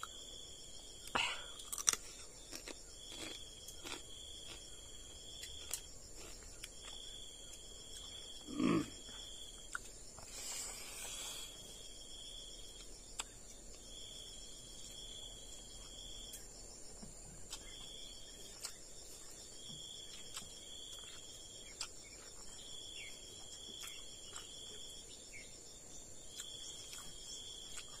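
Insects call in a high trill that repeats in phrases of a second or two, over a steady high whine. Against it come the small clicks and smacks of someone chewing and eating by hand, with a short louder mouth sound that falls in pitch about nine seconds in.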